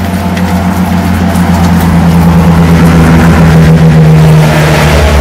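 An engine running with a steady low drone, growing louder over the first few seconds.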